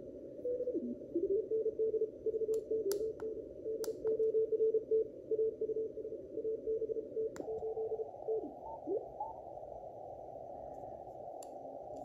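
Morse code (CW) signal on the 80 m amateur band received by a Belka-DSP shortwave receiver: a single tone keyed on and off in dots and dashes over a narrow band of hiss, with the tone sliding in pitch as the receiver is tuned. Small button clicks come from the receiver, and after a click about seven seconds in the hiss gets wider and the keying stops.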